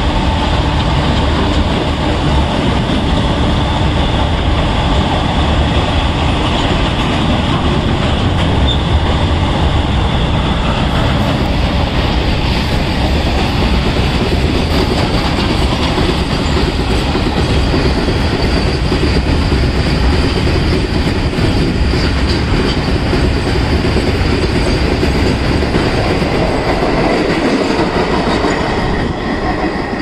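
A long freight train of loaded open-top wagons rolling past at speed: a steady, loud rumble and rattle of steel wheels on the rails, with clickety-clack over the rail joints and some wheel squeal. The noise eases off near the end as the last wagons and the brake van go by.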